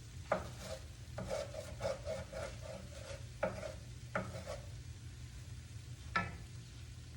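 A utensil stirring and scraping fried rice in a pan: a run of quick scraping strokes, about five a second, between a few sharp knocks of the utensil against the pan, over a steady low hum.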